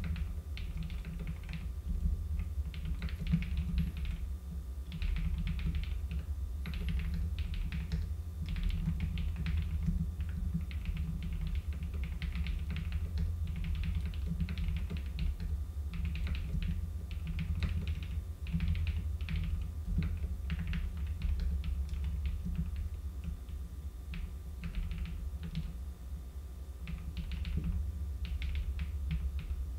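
Computer keyboard typing: irregular runs of quick keystrokes with short pauses between them, over a steady low hum.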